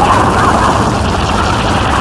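Harsh noise music: a loud, unbroken wall of distorted noise, a bright midrange hiss over a rumbling low end, with no beat or melody.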